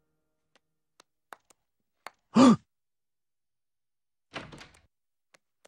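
Sparse, quiet cartoon sound effects: a few faint clicks, a short voice sound falling in pitch about two and a half seconds in, and a soft thump with a brief rustling tail near the end.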